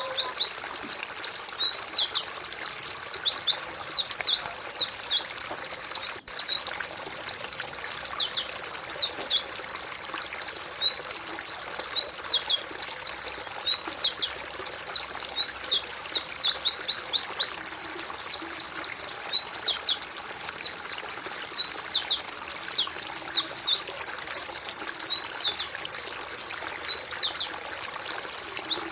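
A flock of white-eyes chirping without pause: many quick, high, downward-sliding chirps overlapping in a dense chorus.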